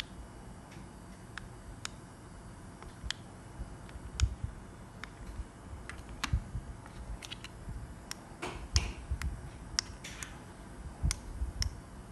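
Irregular sharp clicks and light taps of plastic handheld remote controls being picked up, set down on a table and having their buttons pressed.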